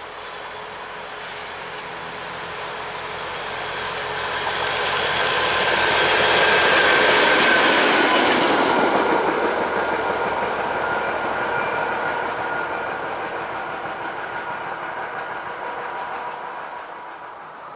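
A locomotive running light, with no carriages, passes on the main line. Its wheels and running gear build to a peak about seven seconds in, then fade away, with a few steady tones over the rumble of wheels on rail.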